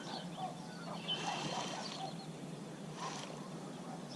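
Birds chirping and calling here and there over a steady outdoor hiss, with a brief thin whistled note about a second in.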